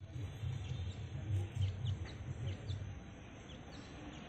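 Grey francolin chick peeping: short, faint, falling high cheeps repeated every few tenths of a second. Over the first three seconds a louder, pulsing low rumble is heard.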